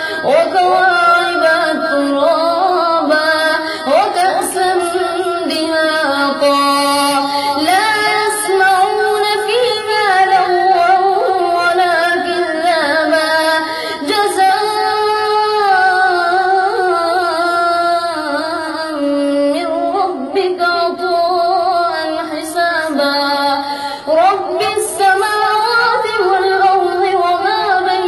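A boy's voice reciting the Quran in the melodic tajweed style: long, held, ornamented phrases with sliding pitch, broken by short pauses for breath about every ten seconds.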